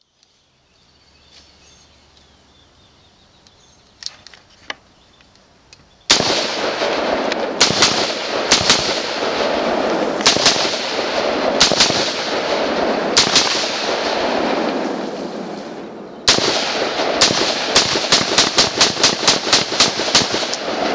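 Bushmaster AR-15 in .223 fired semi-automatic. After a few faint clicks, single shots and double taps come about a second apart from about six seconds in, each with a long echo. Later a rapid string follows, several shots a second.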